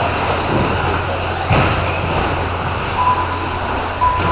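Electric RC short-course trucks racing on an indoor off-road track: a steady hum and noise of motors and tyres, with a sharp knock about a second and a half in and short steady beeps near the end.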